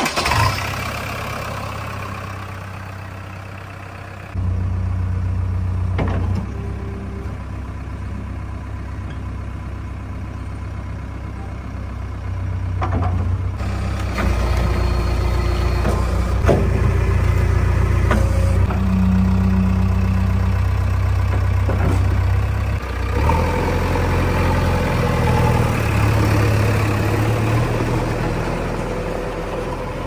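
JCB 3DX backhoe loader's diesel engine running steadily, its note shifting up in steps a few times, with a few faint knocks.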